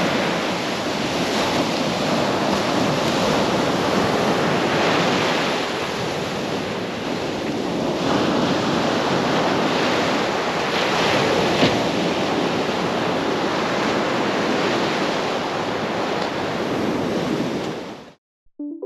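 Mediterranean surf on a sand beach: small waves breaking and washing up and back over the sand, swelling and easing every few seconds. It cuts off abruptly near the end.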